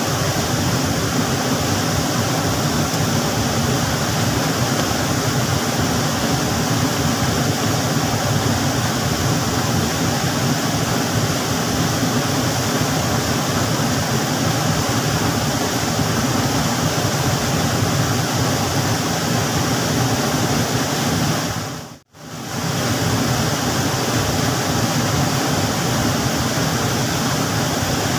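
Whitewater of a small stream waterfall rushing over rock ledges, a loud, steady rush of water. It drops out for a moment about three-quarters of the way through.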